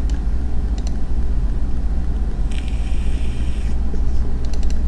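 Steady low background rumble on the microphone, with a short rasp in the middle and a few sharp computer-mouse clicks, most of them close together near the end.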